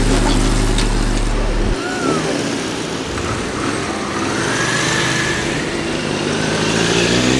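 Air-cooled classic motorcycle engines running and revving as the bikes pull away one after another. A low steady engine note stops abruptly about two seconds in, and later one engine's pitch climbs through a rev.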